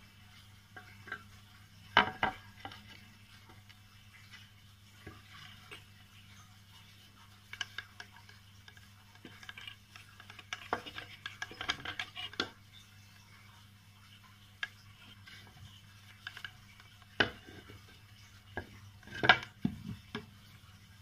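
Hands handling a screw and an angle grinder on a plywood board: scattered light clicks and knocks, with a busier patch of rattling about halfway through, over a faint steady low hum.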